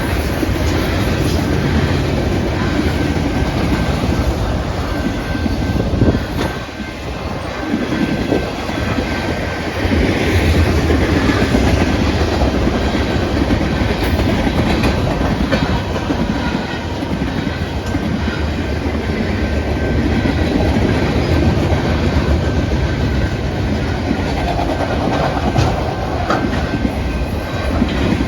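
Freight train's cars rolling past: a continuous rumble with the clickety-clack of wheels over the rail joints, dipping briefly a few seconds in.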